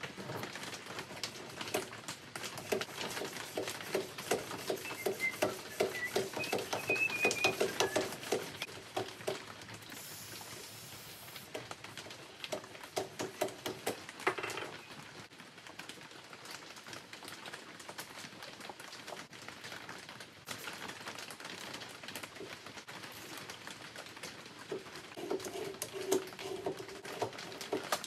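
Rapid clicking and tapping of hand tools working on a Porsche 968 window regulator and gearbox clamped in a bench vise. A low pulsing sound runs under the clicks in the first several seconds and returns near the end.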